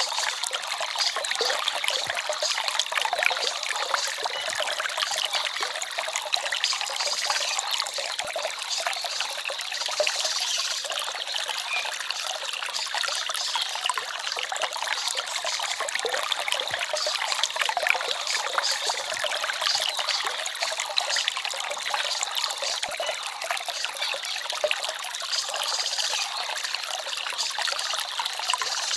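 Small forest stream babbling and trickling over stones, a steady, even rush of water with no breaks.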